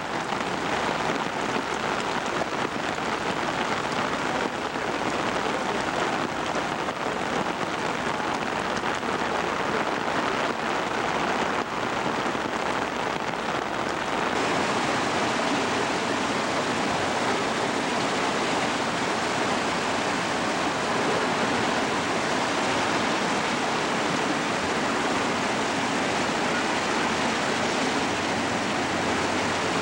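Steady rushing of a flooded river's muddy torrent, with heavy rain falling. The noise turns brighter and hissier about halfway through.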